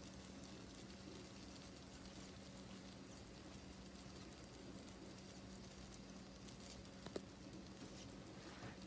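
Near silence: room tone with a faint steady low hum and a couple of faint clicks about seven seconds in.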